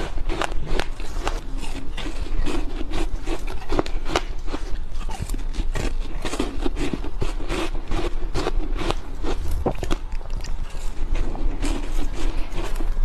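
Soft, powdery ice being chewed close to a lapel microphone: a dense, continuous run of crisp crunches and crackles.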